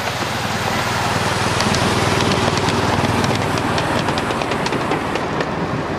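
Miniature ride-on steam tank locomotive hauling a passenger car past at close range, its running noise growing louder to a peak mid-way and then easing, with a fast run of sharp clicks as it goes by.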